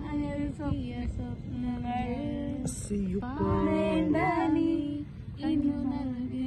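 A voice singing a slow melody in long held, gliding notes, with no clear words.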